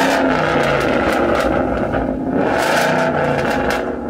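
A car's engine heard up close at its exhaust tip, running with a deep rumble and being revved, its pitch rising and falling a few times.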